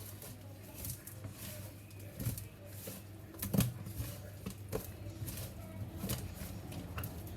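Scattered knocks and clicks of food preparation, the loudest about three and a half seconds in, over a steady low hum.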